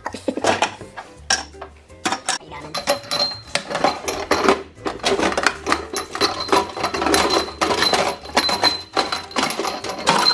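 Small glass canning jars clinking and knocking against each other and the plastic basket as they are set into an air fryer, then the basket is slid back into the fryer. There is a string of irregular clinks and knocks throughout.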